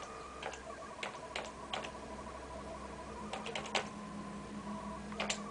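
Computer keyboard keys pressed one at a time while typing a password: scattered single clicks, with a quick run of several about halfway through.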